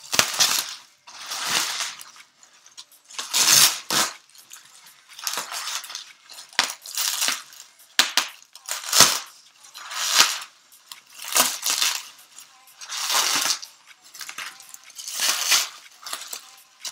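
Shipping package being cut and pulled open by hand: a series of short, noisy scraping and tearing strokes, about one a second.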